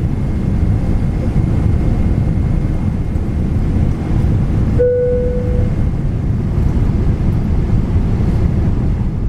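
Steady cabin noise inside a Boeing 777 in flight on its approach: an even, low roar of engines and rushing air. About halfway through, a short single tone sounds for about a second.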